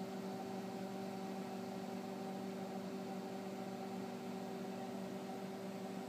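A 900-watt microwave oven running at full power: a steady hum of several constant tones over a faint hiss.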